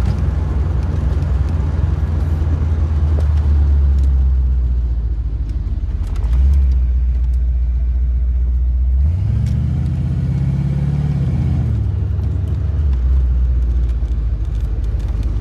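Car engine running under way with road noise, a steady low drone that rises in pitch about nine seconds in as the car accelerates, then drops back around thirteen seconds.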